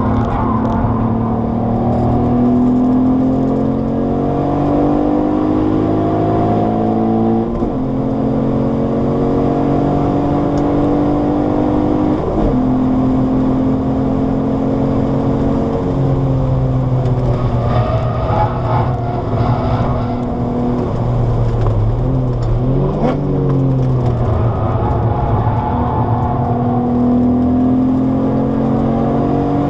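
Alfa Romeo 156's Busso V6 engine heard from inside the cabin under hard driving. It pulls up through the revs with two quick gear changes in the first half, then drops in pitch on lifting off and downshifting, and climbs again near the end.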